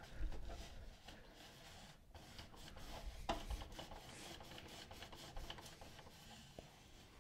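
Print-head carriage of an Epson WorkForce inkjet printer slid back and forth by hand over a folded paper towel: faint rubbing and scraping with a few light clicks, as the dry towel wipes excess water off the print head.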